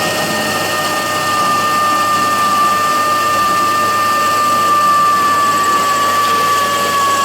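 A handheld power drill starts up with a quick rise in pitch and runs at speed with a steady high whine.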